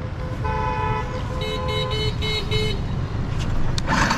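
Vehicle horns in street traffic: one horn held for about a second and a half, overlapped by a run of about five short toots, over a steady low rumble of engines and road.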